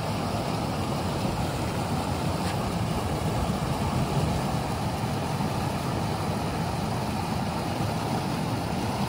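Steady rushing of water flowing through a concrete fish-hatchery raceway, an even noise with a low rumble.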